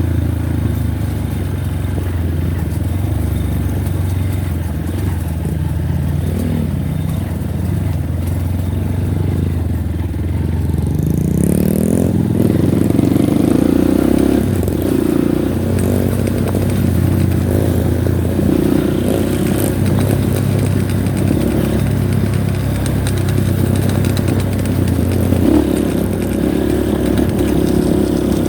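Honda Win motorcycle's small single-cylinder four-stroke engine running while riding along a trail, its pitch rising as it revs up about eleven seconds in.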